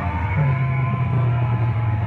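Loud music playing through a large outdoor DJ sound system at competition volume, dominated by a heavy, steady bass line that shifts pitch about half a second in.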